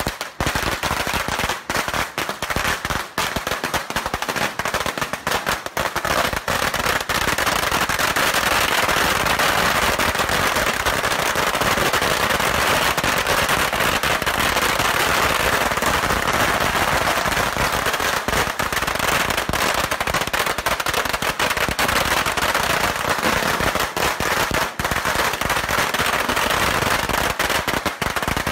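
Strings of firecrackers going off in a rapid, continuous crackle of bangs. The crackle is more broken for the first few seconds, then thickens into an unbroken din.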